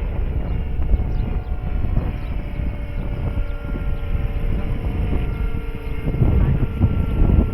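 Large electric RC scale helicopter (a Eurocopter BK117 model converted from gas to electric) in flight, its rotors and electric motor giving a steady whine, with wind buffeting the microphone in heavy low gusts, strongest near the end.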